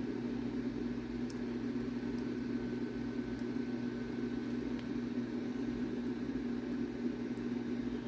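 Steady low mechanical hum with one constant tone, and a few faint light clicks as small lock pins and tools are handled.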